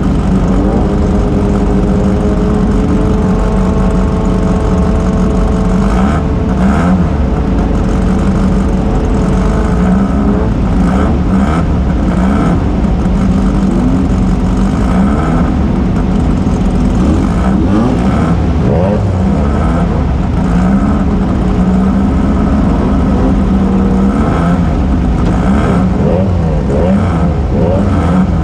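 Off-road race car's engine running hard, heard from on board. The revs rise and fall over and over, above a steady loud drone.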